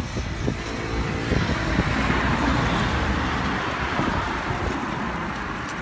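A road vehicle passing on the highway, its noise swelling to a peak about two to three seconds in and then fading.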